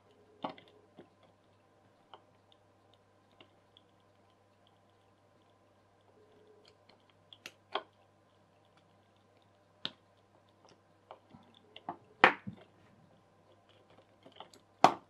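Small plastic gears and parts of a toy gearbox clicking and snapping as they are handled and worked apart by hand. The clicks come singly and far apart at first, then more often near the end, the loudest about twelve seconds in.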